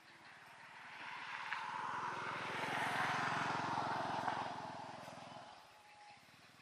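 A motor vehicle passing by, its engine swelling to a peak in the middle and fading away.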